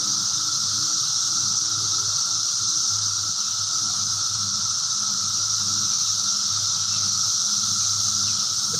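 Steady high-pitched hiss with a faint low hum underneath, unchanging throughout.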